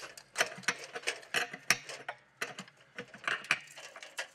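Irregular light metallic clicks and taps from plumbers' hand tools: a spanner on the water heater tank's brass fittings and a steel tape measure against copper pipe.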